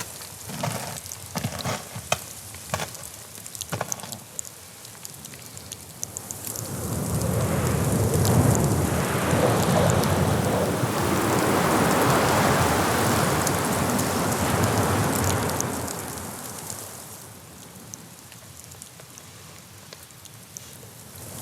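A few light knocks at first, then a gust of wind rushing in, holding loud for several seconds and dying away to a softer hiss.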